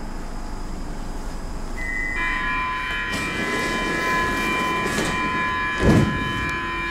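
Stockholm metro train pulling into the platform and braking, its rumble rising and a squeal of several steady high tones holding as it slows to a stop. A short low thump stands out about six seconds in.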